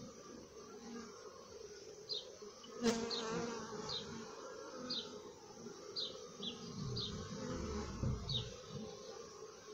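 Honey bees buzzing at a hive entrance as workers fly in and out, a steady hum. Short high chirps repeat about once a second from about two seconds in, and a sharp click comes about three seconds in.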